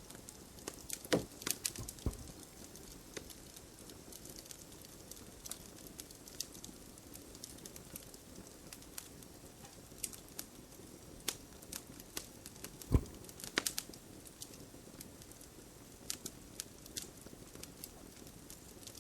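Wood fire crackling with irregular sharp pops, and two louder pops about a second in and about two-thirds of the way through.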